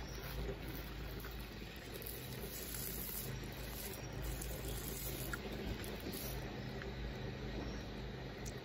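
Faint crinkling and rustling of plastic cling film as a wrapped sandwich is handled and peeled, over a steady low hum.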